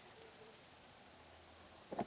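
Near silence: faint background hiss, with one sharp click near the end.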